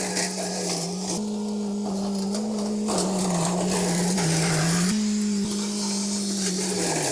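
Small engine running steadily, its pitch stepping up and down a little as the speed changes.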